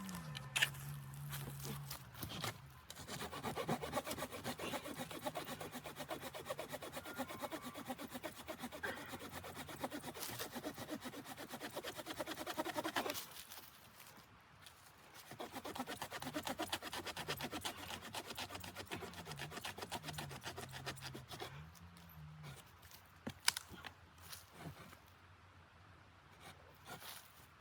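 Wood being cut with a hand saw: a long bout of rapid sawing, a pause of about two seconds, then a second bout.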